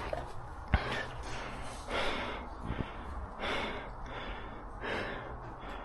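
A person breathing heavily, with four rushing breaths about a second and a half apart. A single sharp knock sounds just under a second in.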